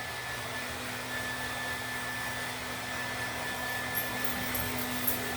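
Handheld blow dryer running steadily on one setting: a constant rush of air with a steady motor hum and a higher whine.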